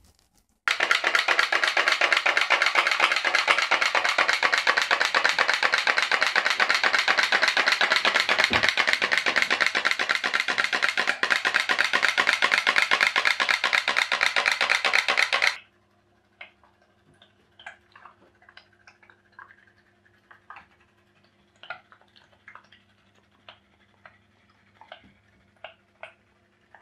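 Tea-light-heated pop-pop boat steam engine running: a loud, very rapid, continuous popping from the boiler for about fifteen seconds, which cuts off suddenly. After that come soft, irregular single pops over a faint steady hum.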